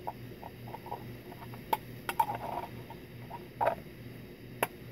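Light clicks and taps of stainless steel spice tins and their lids being handled and twisted, with a few sharper knocks spread through.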